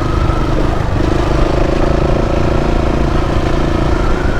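KTM 690's single-cylinder engine running at steady revs under way, its note dipping briefly about a second in, over a low rumble.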